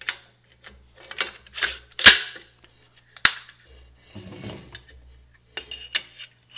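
Bolt carrier group being slid into an AR-15 upper receiver: metal scraping and a series of sharp metallic clicks, the loudest about two seconds in.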